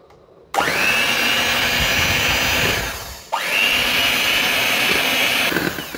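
Electric mixer beating cream. The motor starts about half a second in with a rising whine, runs down shortly before the three-second mark, then starts again with the same rising whine and keeps running.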